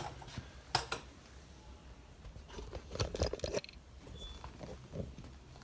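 Small metal tools being handled: a sharp click about a second in, then a short clatter of clicks around three seconds in and a faint tap near the end, as the thread-insert winding tool is taken off.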